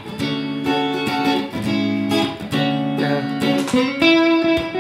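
Electric guitar played through a Valeton GP-200 multi-effects unit on a clean tone, picking a lead phrase of sustained, ringing notes that change every half second to a second, with a louder high note about four seconds in.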